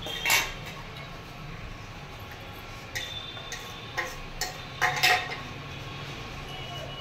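Metal forks clinking and scraping against stainless steel and ceramic plates while eating noodles. There is a clink just after the start, then a run of clinks from about three seconds in, loudest around five seconds.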